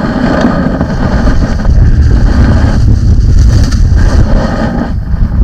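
Wind buffeting the microphone on an open boat: a loud, steady low rumble with a rushing hiss that swells and fades.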